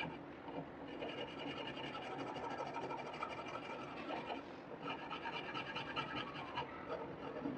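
Flat steel hand file rasping back and forth across a laminated wood knife handle, shaping and smoothing its edge, with a brief break in the strokes about four and a half seconds in.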